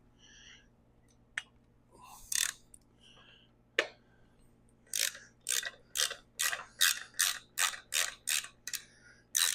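Hand ratchet clicking through a run of about ten quick back-and-forth strokes, about two or three a second, loosening the muffler screws on a chainsaw, after a few scattered tool clicks and clatters.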